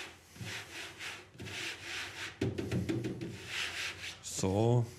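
Dry pyrotechnic powder being rubbed by hand through a fine brass-mesh sieve: a scraping rub repeated about twice a second as the lumps in the mix are crushed through the mesh. A short voice sound, louder than the rubbing, comes near the end.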